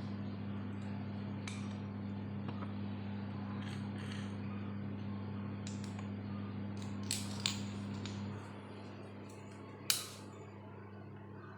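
Scattered light clicks and taps over a steady low hum. The hum drops away about eight seconds in, and the sharpest click comes shortly after.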